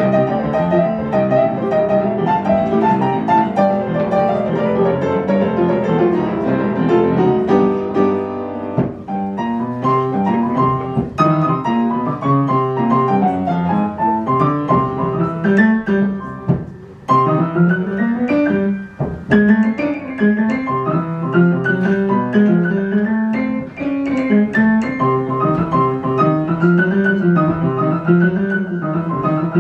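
Solo jazz piano playing a busy line of quick notes over lower chords, with a few short breaks in the middle.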